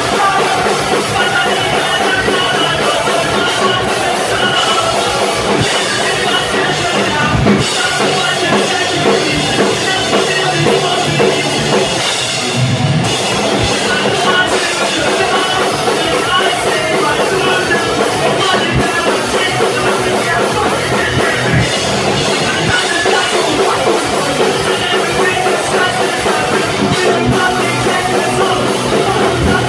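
Live pop-punk band playing loud, with distorted electric guitars, bass and a pounding drum kit.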